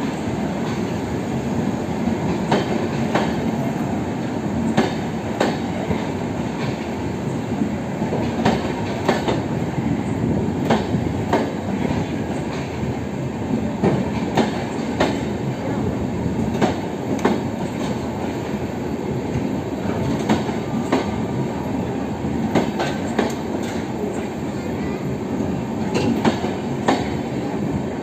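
Express train passenger coaches rolling past close by: a steady heavy rumble of wheels on rail, broken by frequent irregular clicks as the wheels cross rail joints.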